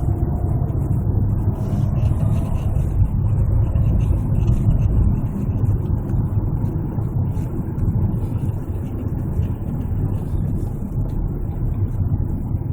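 Hyundai Santa Fe DM driving: a steady low rumble of road and running noise heard inside the cabin, with faint scattered ticks over it. The owner is chasing a creaking noise from the front underbody that comes up while driving.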